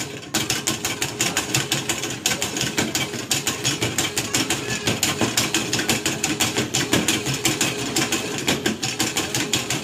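Padded mallet hammering the plastic pop-up moles of a Whac-A-Mole arcade game in a fast, unbroken string of hits, roughly eight a second.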